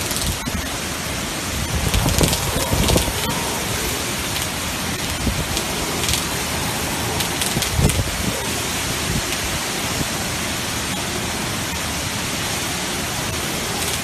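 Typhoon wind and driving rain, a steady dense rush, with stronger gusts a couple of seconds in and again about eight seconds in.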